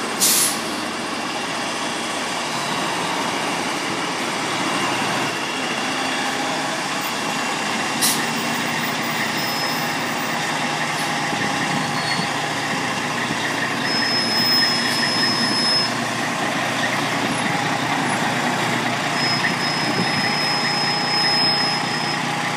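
1991 Grumman FireCat fire engine running steadily, with a short sharp burst of sound near the start and a fainter one about eight seconds in.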